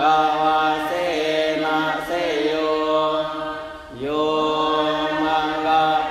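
Thai Buddhist monks chanting Pali verses of the evening chanting in slow, drawn-out held tones. The chant dips briefly about four seconds in, then a new phrase starts.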